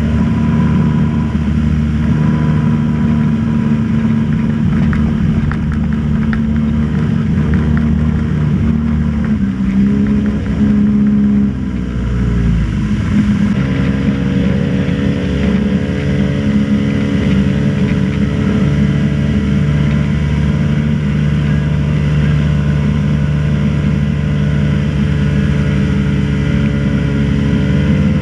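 Motorboat engine running steadily. Its pitch rises and dips briefly about ten to thirteen seconds in, then settles at a new steady speed.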